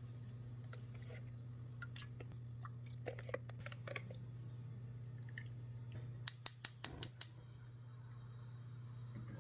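Soft taps and clicks as raw chicken wings are laid into a stainless steel pot on a gas hob, over a steady low hum. A little past the middle comes a quick run of about six sharp clicks in just over a second, the clicking of the gas hob's igniter.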